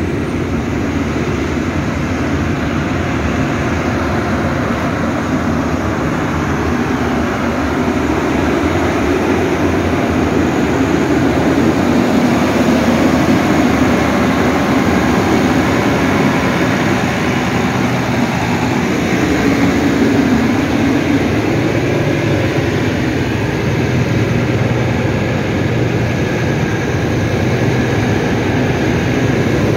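Rebuilt Cummins QSL 8.9 six-cylinder diesel driving a crane's generator set, running steadily at about 1750 rpm under load during its test after overhaul, swelling a little now and then as the load changes.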